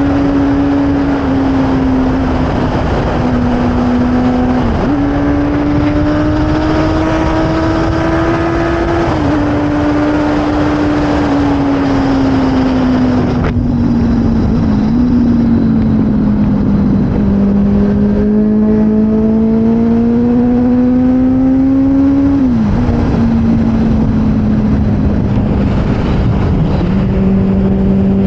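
Motorcycle engine under way, climbing in pitch as it accelerates and dropping suddenly at each upshift, several times, over steady wind rush.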